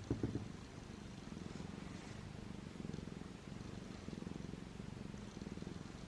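A domestic cat purring steadily and faintly.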